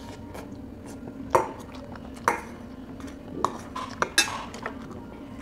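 Metal spoon clinking against a stainless-steel rice bowl while eating: about five short, sharp clinks spaced irregularly, roughly a second apart.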